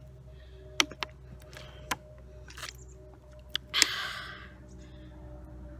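Water bottle being opened and drunk from: several sharp clicks and plastic handling noises, and a short breathy rush about four seconds in.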